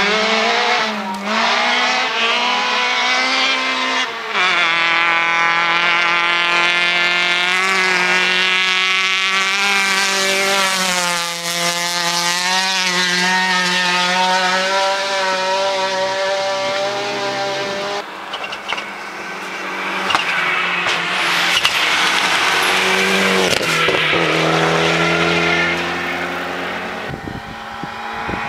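Race car engine driven hard up a gravel hillclimb road. The pitch rises through each gear and drops at several gear changes.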